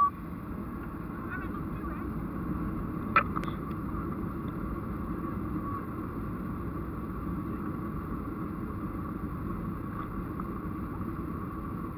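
Jet engines of a Boeing 737 airliner heard from inside the passenger cabin, a steady rumble with a faint high whine over it. A single short click about three seconds in.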